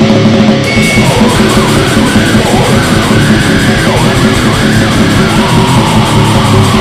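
Extreme heavy metal music: dense distorted guitars and fast drumming with harsh yelled vocals. The deep low end and cymbals come back in just under a second in, after a short thinner passage.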